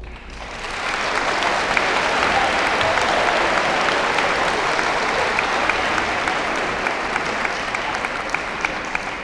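Audience applauding at the end of a choir song, swelling over the first second and holding steady before starting to die away near the end.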